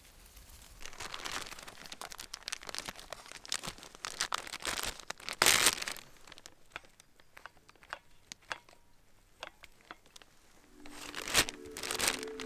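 Thin plastic zip-top bag crinkling and crackling as it is handled while the used coffee filter and grounds are bagged, with the loudest crackle about halfway through. Music with steady held notes comes in near the end.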